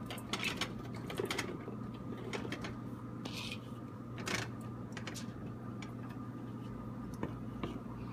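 Cut vegetable pieces tipped and scraped from a plastic bowl into an aluminium pot: a few soft knocks and rustles in the first half, over a steady low hum.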